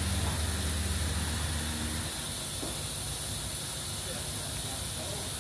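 Steady machine hum and hiss from a powered-up CNC vertical milling machine; a low hum drops away about two seconds in, leaving the hiss.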